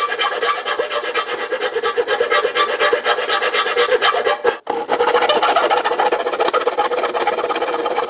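A 12-inch flat file rasping back and forth in a slot cut in a painted sheet-metal panel: steady, continuous filing strokes, with a brief break about halfway through.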